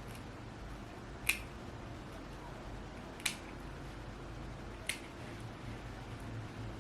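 Scissors snipping three times, about two seconds apart, cutting the lace of a frontal wig.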